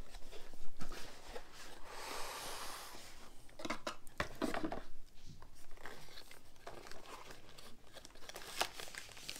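White cardboard microphone packaging being handled and pulled apart: a hissing scrape of card sliding on card about two seconds in, with crinkling, rustling and light taps of card and wrapping.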